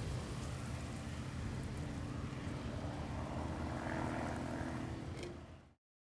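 New Holland TX36 combine harvester running steadily as it harvests wheat, a continuous engine and machinery drone. The sound fades out quickly near the end.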